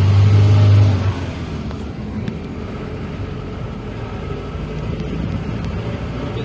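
Car engine running and road noise heard from inside the cabin: a loud low drone for about the first second, then steadier, quieter running noise.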